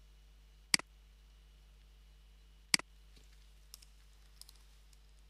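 Two loud, sharp clicks about two seconds apart, then a few faint taps of computer keyboard keys in the second half as a word is typed.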